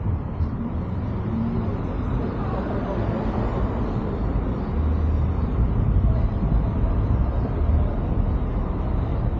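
Car driving through city traffic: a steady low rumble of road and traffic noise that gets louder about halfway through.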